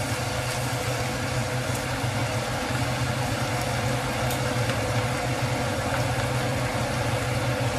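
Beef, bacon and vegetables sizzling steadily in an enamelled Dutch oven over a hot burner, with a steady low mechanical hum underneath and a few faint pops.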